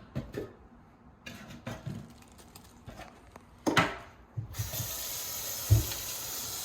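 A few knocks and clicks, then a faucet turned on, with water running steadily into the sink from about two-thirds of the way in.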